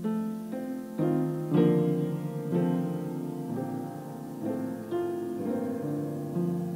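Piano playing slow, gentle music: single struck notes and chords that ring and fade, changing about once a second.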